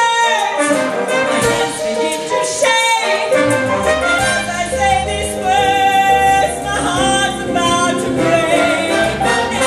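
Live band playing a Latin, salsa-style musical passage with keyboard.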